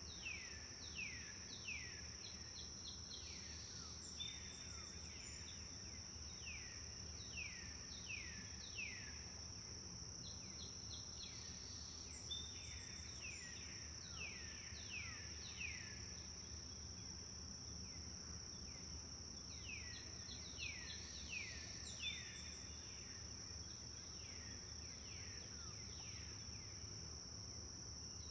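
Forest birds calling in runs of quick downward-sliding whistled notes, with short high chips between, over a steady high-pitched insect drone and a low background rumble.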